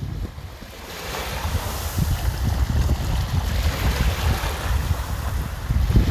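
Seawater washing and surging in a strong wind, with gusts buffeting the microphone in a heavy low rumble. The wind eases just after the start and builds again from about a second in, as a wave washes through.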